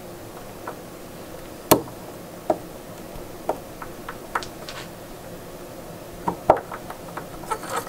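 Metal parts of a Toro reel mower's clutch and gear assembly clicking and knocking as they are handled and pulled apart by hand. A sharp click a little under two seconds in is the loudest, with lighter, scattered clicks after it.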